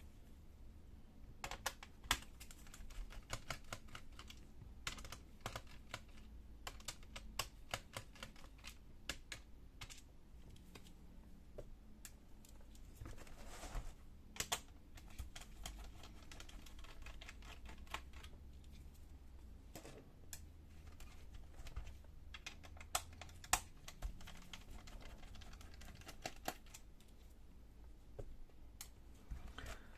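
Irregular small clicks and taps of a screwdriver and fingers on a laptop's plastic case and screws while it is being taken apart.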